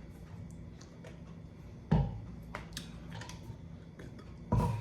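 Takeout wing containers being opened and handled on a table: light clicks and handling noise, with two sharp knocks, one about two seconds in and one near the end.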